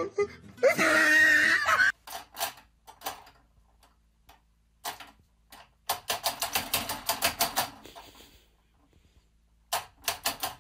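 A man's voice cries out briefly, then sharp clicks and taps come in irregular clusters, with a fast run of about six a second: a cat's paw batting at the pendulum of a wall clock.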